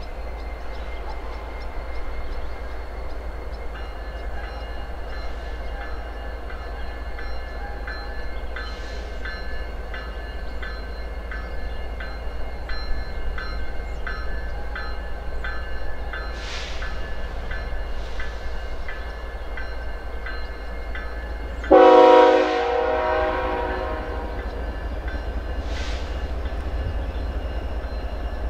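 Freight train with diesel locomotives running with a steady deep rumble and thin steady whines. Late in the stretch one short, loud horn blast starts suddenly and fades over a second or two.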